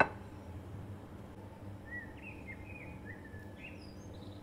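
A sharp knock at the very start, then a few short, high chirps about halfway through over a steady low hum.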